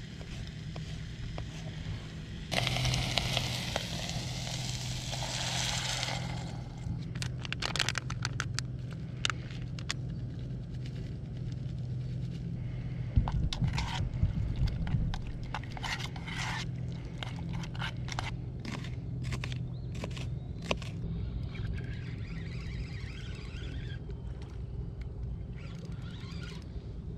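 A metal utensil scraping and clicking against a Jetboil cooking pot while food is stirred, the clicks coming in quick irregular runs. Near the start there is a loud hiss lasting a few seconds.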